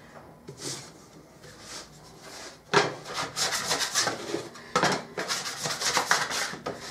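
Metal bench scraper scraped across a floured wooden work table in quick, repeated strokes, starting a little under three seconds in with a short break partway through.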